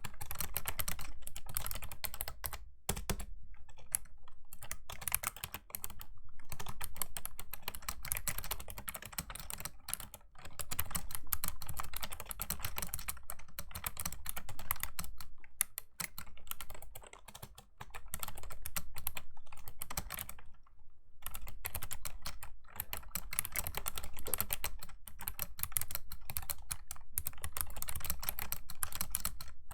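Fast, continuous typing on a Razer Ornata Chroma V2 mecha-membrane keyboard, with crisp clicky keystrokes. The typing stops for brief moments several times, around 3, 10, 17 and 21 seconds in.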